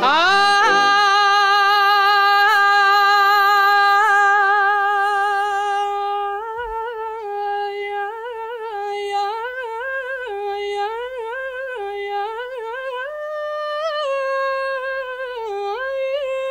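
A male copla singer holds one long high note for about six seconds, then slides into a wavering, ornamented wordless melisma: the drawn-out 'ay' lament of Spanish copla. Little else is heard beside the voice.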